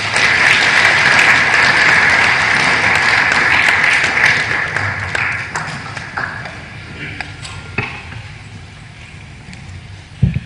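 Audience applauding, loud at first and dying away over about five seconds, leaving a low murmur of voices.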